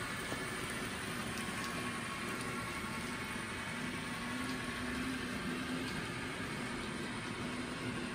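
HO-scale model freight train running past on the layout: a steady running noise of the locomotives and cars on the track, with a few faint clicks.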